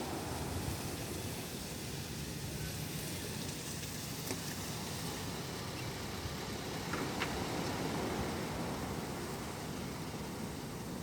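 Steady rain with the rush of sea surf, making an even hiss and rumble that never lets up.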